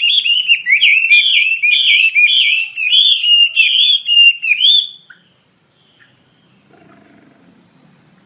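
Chinese hwamei singing vigorously: a loud, rapid run of rich, repeated whistled phrases that stops abruptly about five seconds in.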